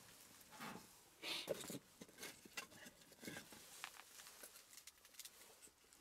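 Faint, scattered knocks and scrapes of split firewood sticks being laid into the firebox of a small metal tent stove.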